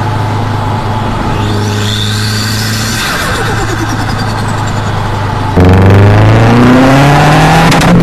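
Subaru WRX turbocharged flat-four engine: a steady drone at cruise for about five seconds, then, suddenly much louder, the engine pulling hard with its pitch climbing under acceleration and a brief drop near the end.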